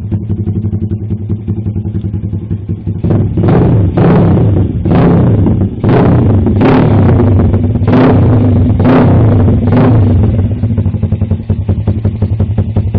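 Lifan KP Mini's big-bore 210cc single-cylinder engine running through a racing exhaust can: idling, then revved in about eight quick blips roughly a second apart from about three seconds in, settling back to idle near the end.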